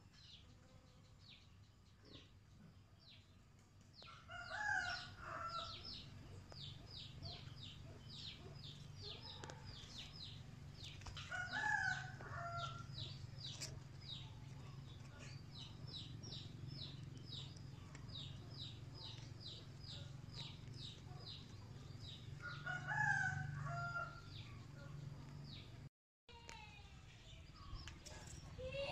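A rooster crowing three times in the distance, about 4, 11 and 22 seconds in, over a steady run of short high chirps.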